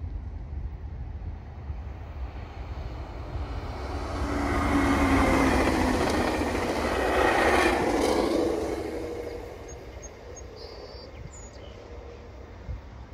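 COASTER commuter train of bi-level coaches passing at speed: the rush of wheels on rail swells about four seconds in, is loudest for a few seconds, then fades away. Wind rumbles on the microphone throughout.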